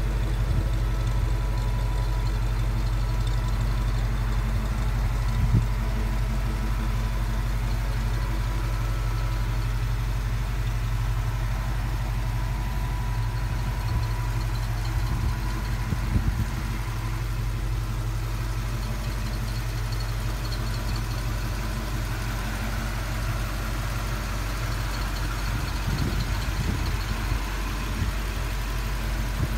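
1978 Ford F-150 pickup's engine idling steadily with a low, even note.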